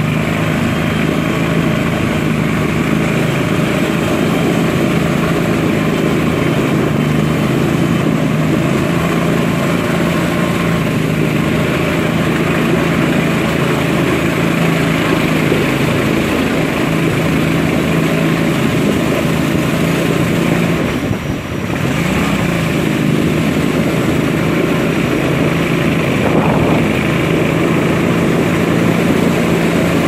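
Ketinting longtail boat engine running steadily under way, a loud even drone with a brief dip about twenty seconds in.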